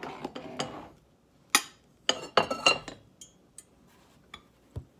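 A plastic bowl of washed rice and a stainless-steel saucepan being set down and shifted on gas-stove grates. A scraping rustle comes first, then sharp clinks and knocks, the loudest about a second and a half and two and a half seconds in, thinning to a few light ticks.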